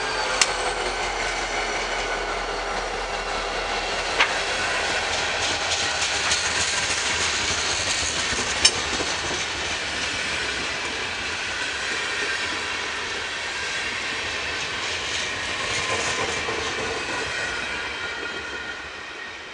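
The cars of NJ Transit's tie train rolling past at speed. The wheels keep up a steady clatter on the rails, with a few sharp clicks, and the sound fades near the end as the last car goes by.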